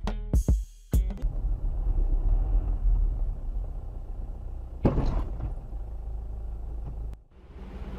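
Low, steady engine and road rumble heard from inside a car through a dashcam microphone, with one short thump about midway. A second of music with drum hits runs first and stops.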